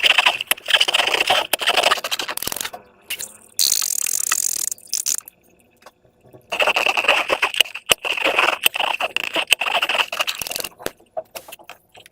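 Slime being squished and worked by hand: a dense crackling of small wet clicks in two long stretches, with a short hiss between them and a few scattered clicks near the end.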